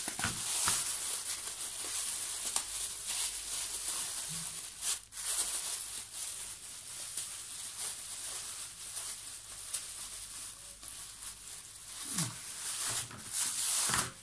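Thin plastic carrier bag rustling and crinkling as it is handled and pulled off fish in a plastic basin, with a few louder crackles.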